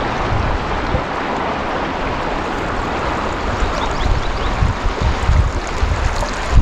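Shallow river running over a stony bed, a steady rushing ripple, with irregular gusts of wind buffeting the microphone, more in the second half.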